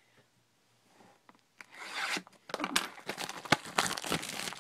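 A razor blade cutting into the sealed wrapping of a trading-card box, then the wrapping being torn and rubbed. A quick run of scratchy tearing strokes and clicks starts about a second and a half in.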